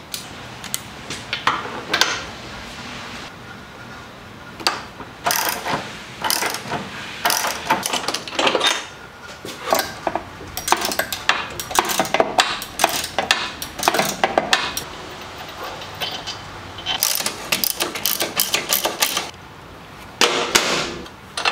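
Hand tools working on the bolts of a motorcycle's rear monoshock mount: spells of quick metallic clicking and clanking, with sharp taps of metal on metal.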